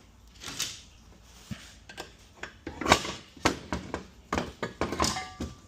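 Metal transmission parts knocking and clanking as they are worked apart off their dowel pins: about half a dozen sharp knocks, the loudest about three seconds in, with a brief metallic ring near the end.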